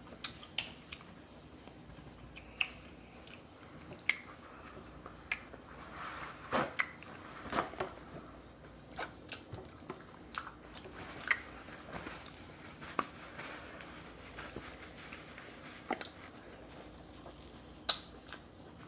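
Eating a seafood boil: chewing and biting, with short sharp clicks and cracks about once a second.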